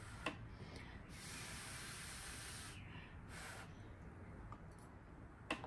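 Faint breathing through the nose while chewing a mouthful of food: one long breath out about a second in, then a shorter one, with a couple of small clicks at the start and near the end.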